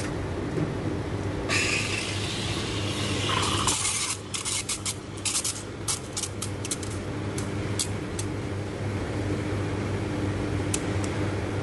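Espresso machine steam wand steaming milk in a steel pitcher: a loud hiss from about a second and a half in, then spluttering bursts about four to eight seconds in as the tip draws air and stretches the milk, settling into a quieter steady texturing hiss. A steady hum from the machine runs underneath while the espresso shot pours.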